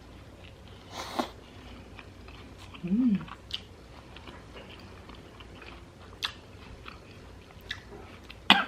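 Close-up eating sounds: biting into and chewing a taco wrapped in crunchy jicama, with scattered crunches and wet smacks. A short hummed "mmm" comes about three seconds in, and a sharp, loud crunch near the end.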